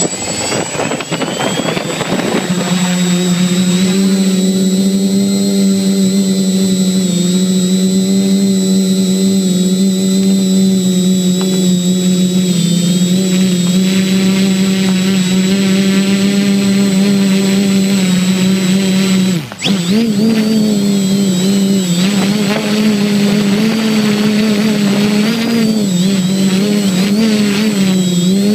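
Electric motors and propellers of a small radio-controlled aircraft, heard through its onboard camera. They spin up from rest over the first couple of seconds to a steady high hum with a thin whine above it. About two-thirds through the hum drops sharply for a moment, then runs on with its pitch wavering as the throttle changes.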